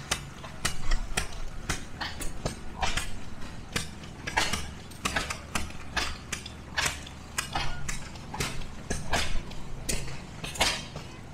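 Antique gas engines running: a steady low rumble with irregular sharp metallic clicks and clanks, two or three a second.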